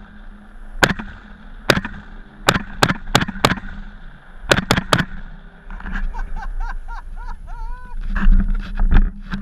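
Gunshots sound across the field: two single shots, then two quick volleys of three shots each, about a third of a second apart. A few short pitched calls that rise and fall follow near the end.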